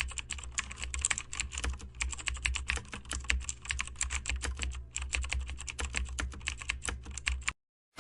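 Computer keyboard typing sound effect: a fast run of key clicks with two short pauses, stopping abruptly shortly before the end.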